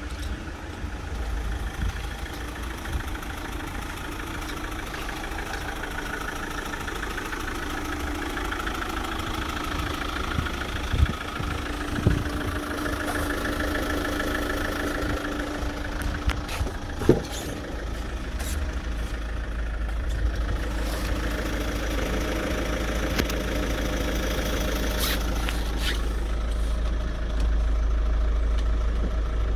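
GM Daewoo Winstorm SUV's engine idling steadily, with a few short knocks around the middle.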